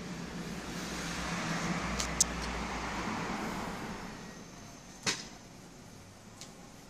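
A road vehicle passing, its noise swelling and then fading over about three seconds. There are two sharp clicks, a small one about two seconds in and a louder one about five seconds in.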